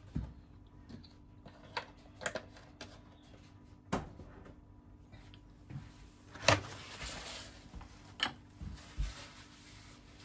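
Scattered light knocks and clatter of kitchen things being handled on a counter: a milk carton set down and a plate of sandwiches lifted off a plastic cutting board. The loudest knock comes about six and a half seconds in, over a faint steady hum.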